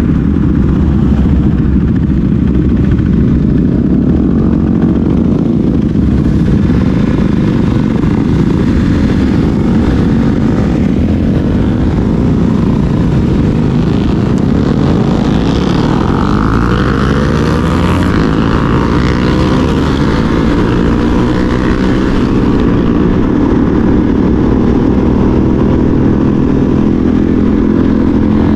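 Single-cylinder engine of a Husqvarna Svartpilen 401 motorcycle running while being ridden, its note rising and falling through the middle as the throttle changes.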